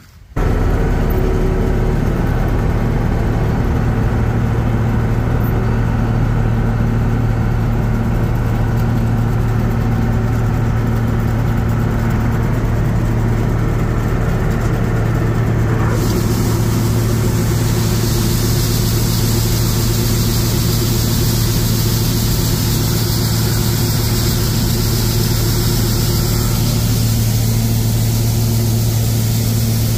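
John Deere 6620 Titan II combine running steadily while harvesting corn: a loud, even engine hum with machinery noise over it. A brighter hiss joins in about halfway through.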